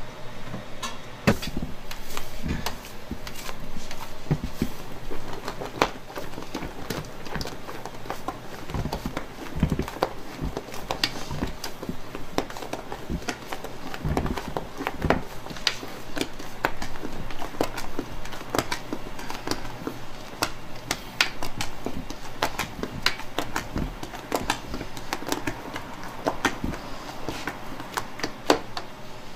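Cake batter being folded by hand in a large stainless steel pot, the mixing utensil scraping and knocking against the metal sides in irregular clicks and taps.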